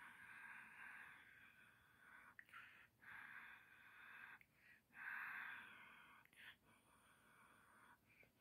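Faint breathing close to the microphone, soft hissy breaths in and out every second or two.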